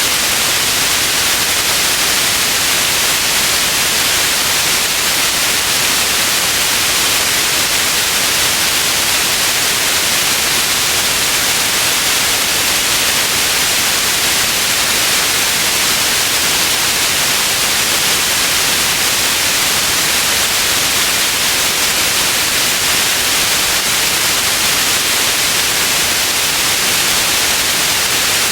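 Steady white noise: an even, unbroken hiss, strongest in the high frequencies.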